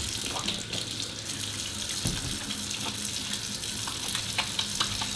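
Water running from a tap into a sink in a steady stream, with a few light knocks.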